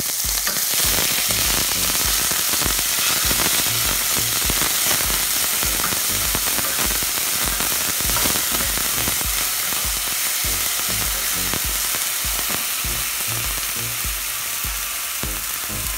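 Ginger-garlic paste sizzling steadily as it fries in hot mustard oil in a stainless steel pot. A wooden spatula stirs it, scraping and knocking softly against the pan bottom over and over.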